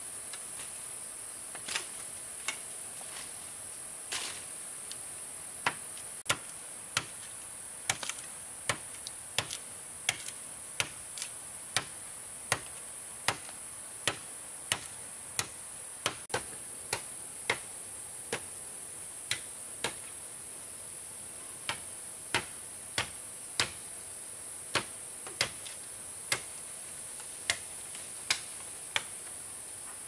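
Repeated sharp strikes of a hand tool, chopping or hammering, about one every second from about six seconds in, with a short pause about two-thirds of the way through. A steady high insect drone runs underneath.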